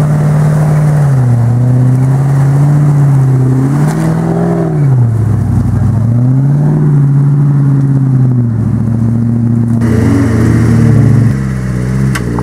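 Land Rover Discovery engine revving up and down several times as the 4x4 drives through deep mud ruts. Near the end it gives way to a quieter engine note.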